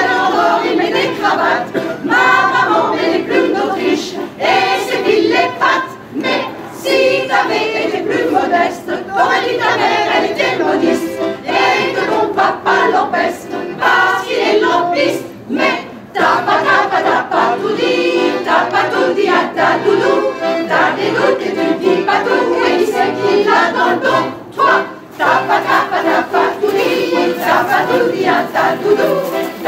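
Mixed choir of men and women singing together with accordion accompaniment, with short breaks between phrases.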